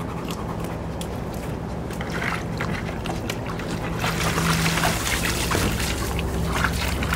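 Water splashing and trickling in a plastic kiddie pool as a German Shepherd and a Rottweiler wade and lie in it, busier and louder from about four seconds in. A steady low hum runs underneath.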